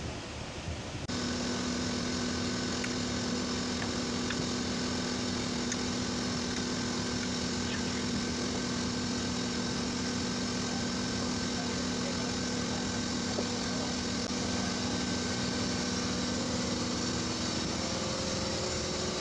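A machine running with a steady hum at a constant pitch, starting about a second in, with a few faint clicks over it.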